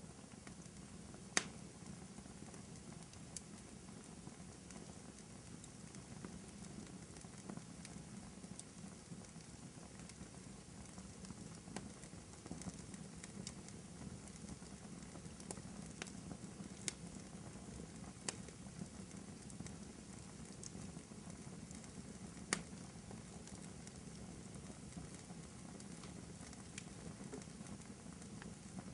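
Fireplace crackling: a steady low rumble of burning wood with scattered sharp pops, two of them louder, about a second and a half in and again near twenty-two seconds in.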